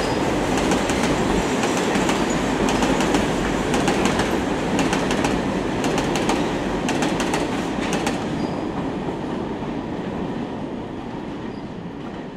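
Container flatcars of a freight train rolling past, the wheels clicking sharply over the rails with a steady rumble. After about eight seconds the clicks stop and the rumble fades away as the last wagon passes.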